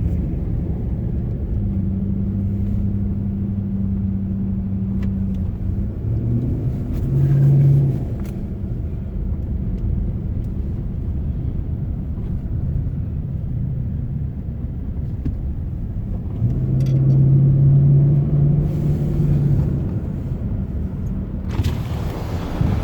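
An engine running steadily with a low rumble. Its note steps up and grows louder twice: briefly around seven seconds in, and again for a few seconds from about sixteen seconds. Near the end a rushing, wind-like noise rises over it.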